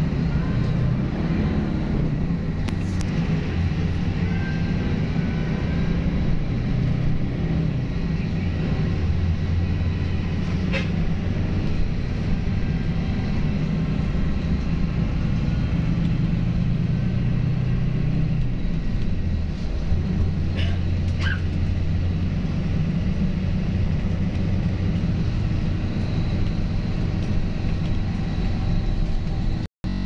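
Bus engine and road noise heard from inside the passenger cabin: a steady low rumble whose deep note swells and eases as it drives, with a couple of brief faint high sounds around the middle.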